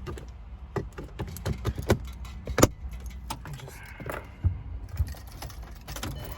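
Ratcheting screwdriver clicking irregularly as T20 screws are driven into the console trim, with small metallic rattles; the sharpest click comes about two and a half seconds in.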